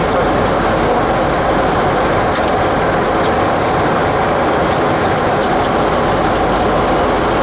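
Steady cabin noise on a Boeing 737-800 flight deck in flight: an even rush of airflow over the nose and windshield with the engines' hum under it, and a few faint ticks.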